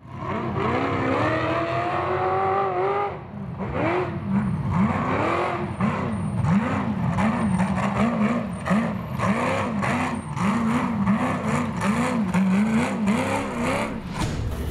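Ultra 4 race car's engine revving hard: its pitch climbs steadily for about three seconds, then rises and falls over and over as the throttle is worked on and off, with scattered knocks.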